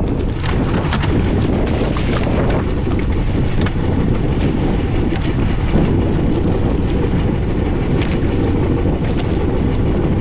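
Strong wind buffeting the microphone aboard a small fishing boat in rough sea: a loud, steady low rush with brief sharp crackles every second or so.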